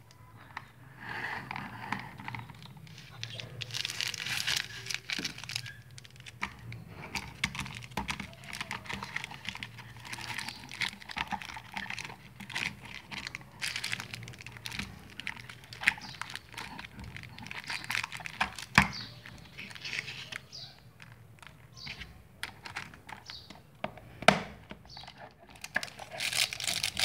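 Cellophane wrappers on play-dough sticks crinkling as they are handled, with plastic toys clicking and knocking on a wooden tabletop; a few sharper snaps stand out about two-thirds of the way through and near the end.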